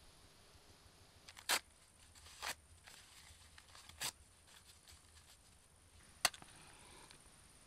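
Four short, sharp cracks spread over several seconds. The last and sharpest, near the end, is a match struck on the side of its box, followed by a faint hiss as it catches.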